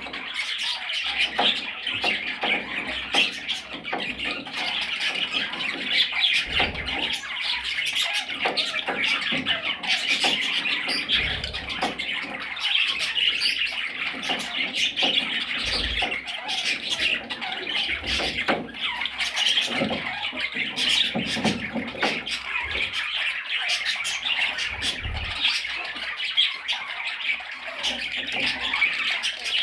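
Budgerigars chattering and squawking continuously, a dense mix of warbling chatter and short sharp calls.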